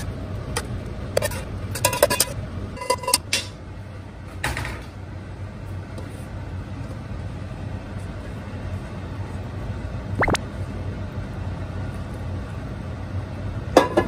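A metal frying pan and spoon clinking and scraping against a ceramic gratin dish as a cream sauce is poured and spread over macaroni, several knocks in the first few seconds, then a single click and a last clink near the end, over a steady low hum.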